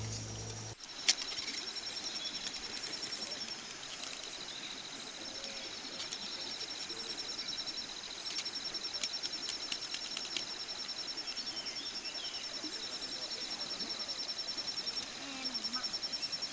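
Forest ambience with insects trilling in fast, even pulses at two high pitches, breaking off and starting again, and a few sharp clicks. Background music cuts off just under a second in.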